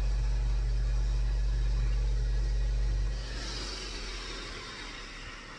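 A low, steady machine hum that stops about three seconds in, leaving a faint hiss.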